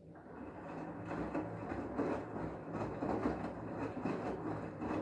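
LG washing machine running a wash cycle: a steady low motor hum with the drum churning and tumbling, building up over the first second.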